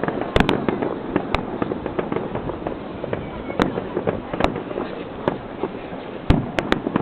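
Aerial fireworks bursting in a display: about eight sharp bangs at irregular intervals, some in quick pairs, over a steady crackling background, with the loudest bang near the end.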